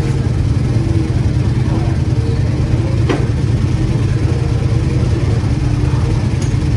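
Ducati 998 RS superbike's L-twin engine idling steadily while it warms up, with a brief sharp knock about three seconds in.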